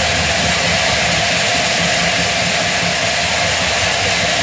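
Stadium crowd noise: a steady, loud roar from a full stadium.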